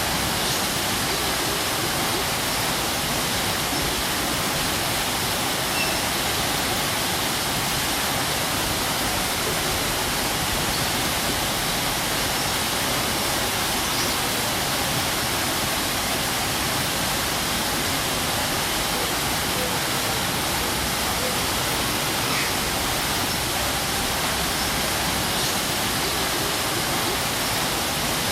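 Waterfall: a steady, even rush of falling water with no letup.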